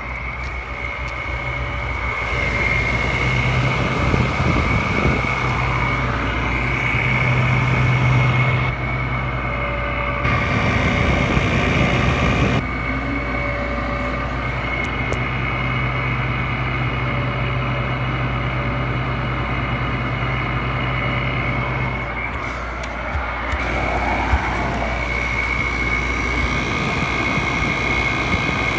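Zenith 5,000 BTU window air conditioner running with a steady mechanical hum and a high whine. A low hum drops away about three-quarters of the way through.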